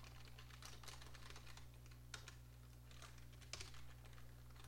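Faint typing on a computer keyboard: quick, irregular keystrokes.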